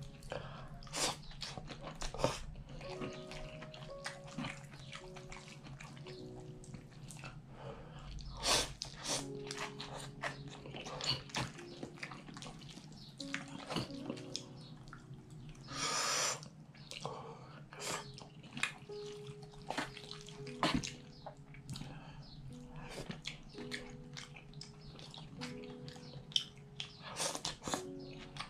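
Instant kimchi ramen noodles slurped and chewed from a bowl, with short wet slurps every few seconds and one longer slurp about halfway through. Soft background music plays underneath.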